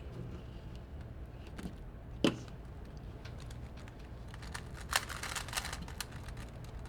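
Rubik's cube being turned by hand: light plastic clicks, sparse at first with one sharp click about two seconds in, then a quicker run of clicks in the second half.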